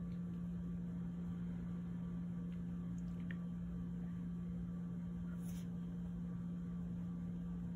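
A steady low hum, with a few faint clicks as crimped spade connectors are handled and pushed onto a rocker power switch's terminals.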